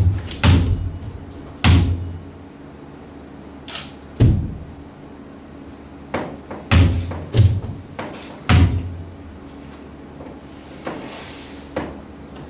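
A run of about seven heavy, irregularly spaced thuds: a dancer's body dropping and landing on a stage floor.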